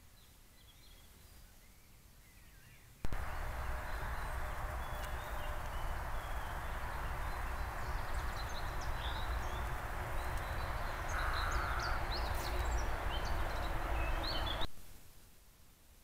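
Outdoor ambience with songbirds: after about three seconds a steady rushing background noise with a low rumble sets in, scattered with many short, high bird chirps. It stops abruptly near the end, leaving only faint chirps.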